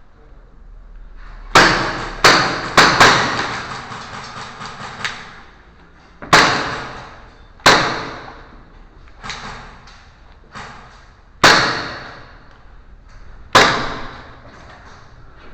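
A series of about eleven single sharp bangs at irregular intervals, several close together near the start. Each one echoes away over about a second.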